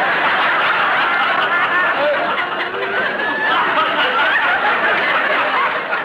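A large studio audience laughing at a punchline: one long, dense wave of crowd laughter. The old radio transcription has its top end cut off, so it sounds dull.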